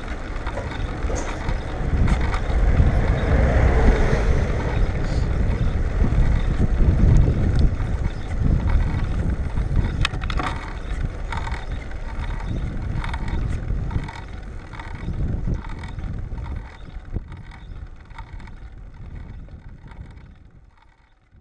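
Wind buffeting the microphone of a camera riding on a moving bicycle, an uneven low rumble with a few light clicks, fading out near the end.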